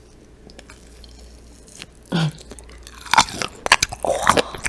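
Close-miked ASMR biting and chewing of a Cheongyang chili hot bar: a short low vocal sound about two seconds in, then snappy, wet bites and chewing with sharp clicks from about three seconds in.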